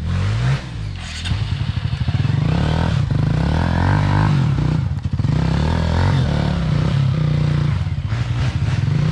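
Off-road motorcycle engine revving up and down at low speed, the throttle worked on and off as the bike is ridden over tree roots on a trail.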